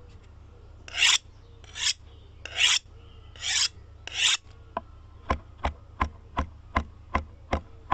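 Five rasping, scraping strokes about a second apart, followed by a run of short sharp clicks at nearly three a second, over a steady low hum.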